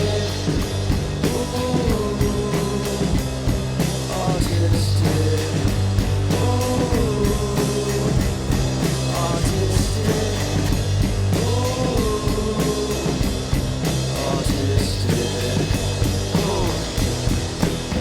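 Rock band music: drum kit, bass and guitar playing a steady groove, with a sliding melodic phrase that comes back about every five seconds.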